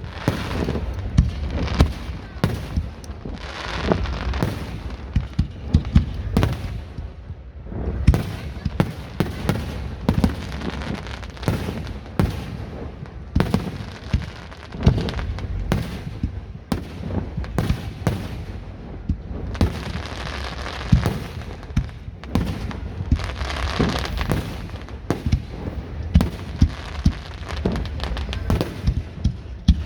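Fireworks display: a continuous barrage of aerial shell bursts, booms and crackles, several bangs every second over a rolling low rumble.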